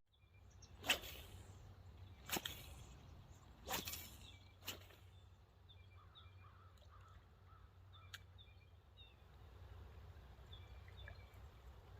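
Faint outdoor ambience with a low steady rumble. A few short knocks come in the first half, then faint short high bird chirps.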